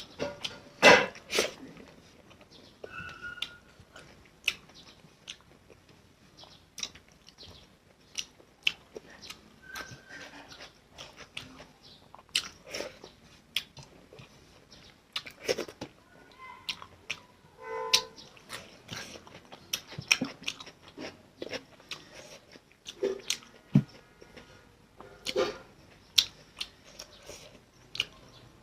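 Close-miked eating sounds of a person chewing Maggi instant noodles and fried egg: wet chewing with frequent sharp mouth clicks and smacks at an irregular pace, the loudest about a second in.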